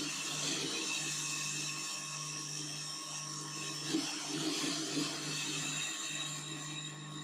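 Electric tomato-paste machine running: its motor hums and whines steadily, with a few light knocks about four and five seconds in.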